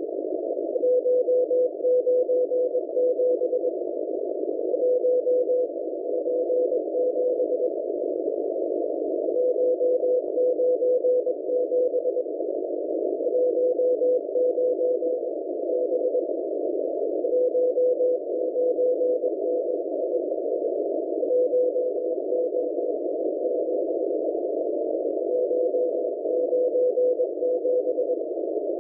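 Morse code from the M01 numbers station received on shortwave: one steady mid-pitched beep keyed in quick dots and dashes, sent in groups about every four seconds. Constant band-limited static hiss from a narrow receiver filter runs under it.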